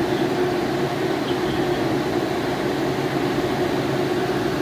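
Freezer's compressor and condenser fans running with a steady hum, the unit working under load while it is charged with refrigerant.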